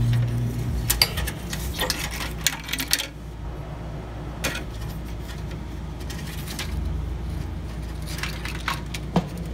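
Plastic power-switch assembly clicking and rattling against a steel desktop computer chassis as its side clips are squeezed and it is pulled free: a quick run of clicks and knocks in the first three seconds, then a few scattered clicks.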